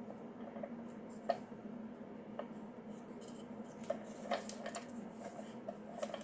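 Scattered light clicks and taps of a Nelson tractor sprinkler being handled and worked at while trying to pry a part off, over a steady low hum.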